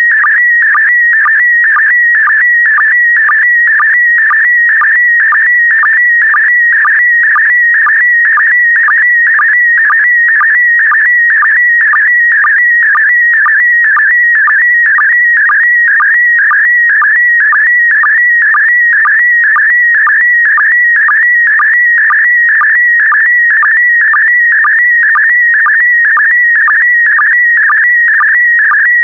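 Slow-scan television signal in PD120 mode: a loud, steady electronic warbling tone, broken by a short lower-pitched sync pulse about twice a second as each pair of image lines is sent.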